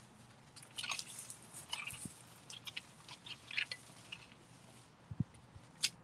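Long-handled garden tool digging through a sweet potato bed, crackling and crunching through dry vines and soil, with a couple of dull thuds and a sharp click near the end.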